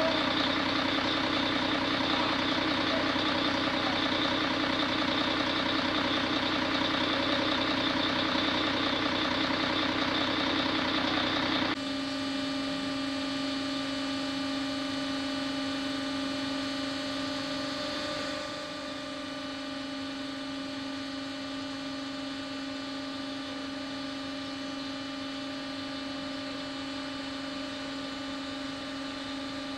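An engine running steadily. About twelve seconds in it cuts abruptly to a steady machine hum with a strong low tone, which drops a little in level a few seconds later.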